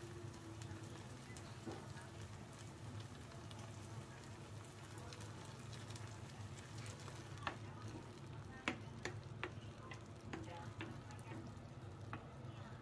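Diced onion and bacon sizzling softly in a frying pan under a carbonara sauce. From a little past halfway, a metal spoon clicks and scrapes against the pan as the sauce is stirred in.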